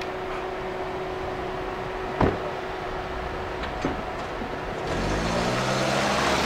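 A car: a door thump about two seconds in and a smaller knock later, then near the end the engine rises in pitch and gets louder as the car pulls away.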